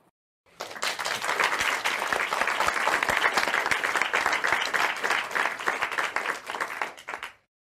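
Applause from many people: a dense, even patter of clapping that starts about half a second in and fades out shortly before the end.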